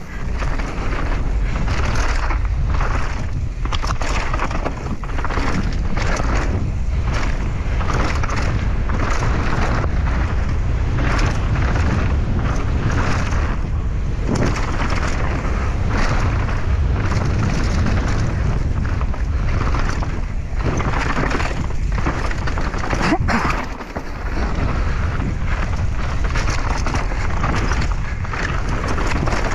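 Kellys Noid downhill mountain bike ridden fast down a rough trail: wind rushing over the camera microphone, with the rumble and steady clatter of tyres and frame over rocks and roots. The noise eases briefly about 23 seconds in.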